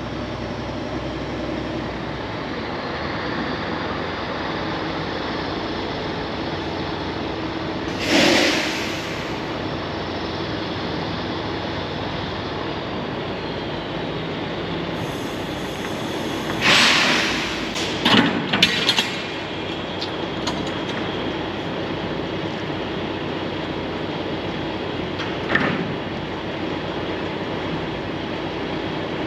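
Semi truck's engine and drivetrain running steadily, with short loud bursts of noise about 8 seconds in, a cluster around 17 to 19 seconds, and one more near 25 seconds.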